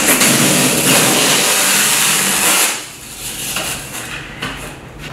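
Clear packing tape being pulled off the roll of a handheld tape gun across a cardboard box. It makes a loud, continuous tearing screech for about two and a half seconds, then gives way to quieter rubbing and a few taps as the tape is pressed down and handled.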